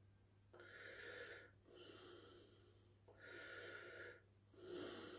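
A person breathing faintly and slowly, four soft breaths in and out about a second and a half apart.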